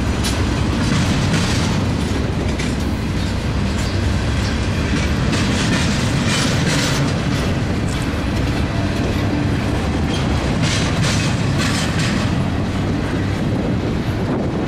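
Double-stack intermodal freight train's container well cars rolling past close by: a steady rumble of steel wheels on the rails, with brief louder hissing swells every few seconds.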